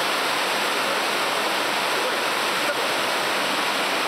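Waterfall and rapids of a mountain stream pouring over rocks: a steady rush of water with a brief dip in level about two-thirds of the way through.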